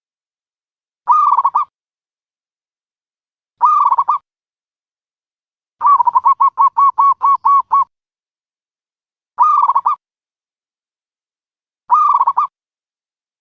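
Dove calls of the kind played to lure doves to a trap. Short cooing calls come about every two and a half seconds, five of them, each about half a second long. In the middle is a quick run of about a dozen clipped notes lasting about two seconds.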